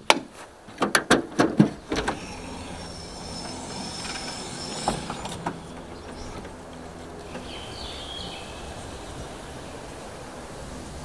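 Sharp clicks and knocks on a pickup hardtop canopy's pop-up roof as it is taken hold of and set moving. The parallel pop-up roof is then raised on its struts, with a couple more knocks about halfway and a short squeal a little later, over steady outdoor background noise.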